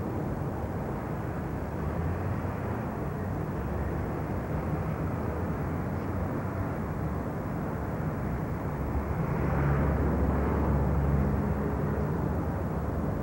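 Steady outdoor traffic rumble, with a motor vehicle's engine growing louder about nine seconds in as it passes, then easing off near the end.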